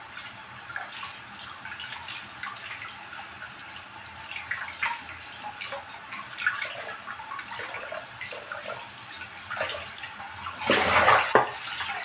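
Kitchen tap running onto bok choy leaves as they are rinsed by hand, with small scattered splashes and drips. Near the end comes a louder burst of splashing, about a second long, as the plastic bowl is handled.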